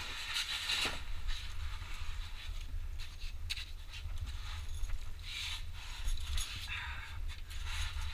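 Muffled bursts of rustling and scraping, about one a second, as a person climbs down between sandstone boulders, over a steady low rumble from a waterproof camera housing.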